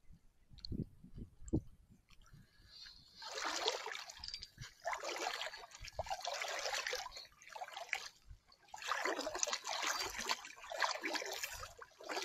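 Shallow seawater sloshing and trickling around a wading angler's legs, coming in repeated swells about a second long. A few soft low thuds come in the first two seconds.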